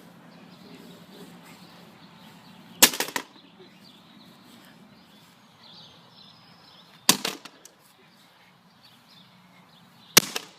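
Three sharp hard hits on a plastic Nerf gun, each a single crack with a short rattle after it, spaced three to four seconds apart. The blows leave the gun cracked.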